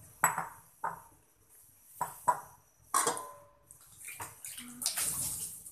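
An aluminium cooking pot of coconut-milk fish curry is knocked by a utensil five times in the first three seconds, each knock ringing briefly. Then the liquid sloshes with a hissing sound as it is stirred.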